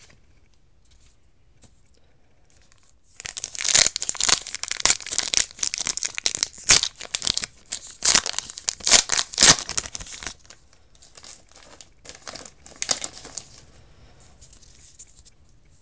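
Foil wrapper of a Japanese Pokémon booster pack being torn open and crinkled. Sharp crackling starts about three seconds in, then thins to lighter rustles a couple of seconds before the end.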